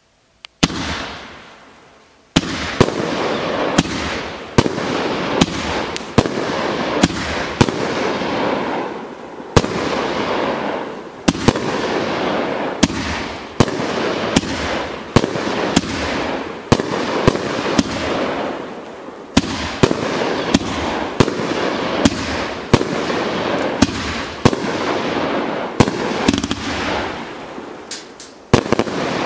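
A 500-gram, 20-shot consumer fireworks cake (Meteor Showers) firing. One shot goes off about half a second in, then after a short pause come sharp reports, roughly one or two a second, each followed by a dense crackling hiss that fades before the next. The firing stops just before the end.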